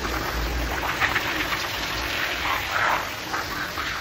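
Water jet from a handheld hose spray wand hitting a wet rug: a steady spraying rush that swells and eases as the jet moves across the pile.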